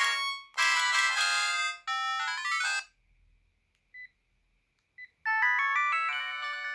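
Sharp GX12 mobile phone playing its ringtones through its small speaker: one electronic melody in chords cuts off about three seconds in. Two short beeps follow, and a new ringtone melody starts near the end.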